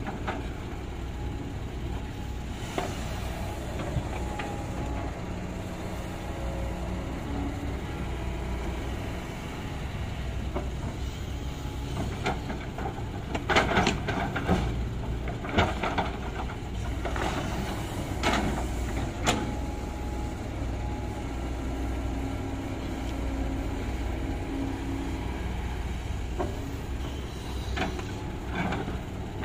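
Kobelco hydraulic excavator's diesel engine running steadily as it loads a dump truck, with several short bursts of soil dropping from the bucket into the steel truck bed, the loudest between about halfway and two-thirds of the way in.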